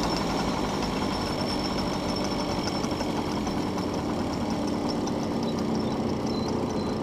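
Babetta moped's 50 cc two-stroke single-cylinder engine running steadily under way, heard close up from the rider's seat.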